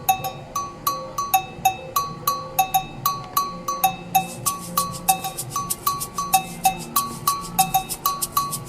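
Background music: a light, bouncy pattern of short tuned knocks, several a second, over a soft sustained backing.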